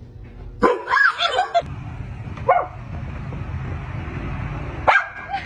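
Dog barking: a quick cluster of short barks about a second in, a single bark around two and a half seconds, and another near the end, over a steady low background hum.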